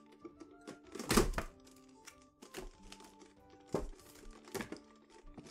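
A cardboard figure box being opened and its packaging handled: a loud crinkling thunk about a second in, then several lighter knocks and rustles. Background music with steady, held notes plays throughout.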